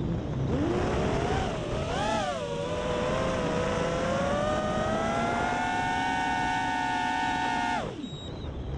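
Racing quadcopter's electric motors whining, the pitch climbing and wavering with the throttle, then held high for several seconds. Near the end the whine falls away steeply.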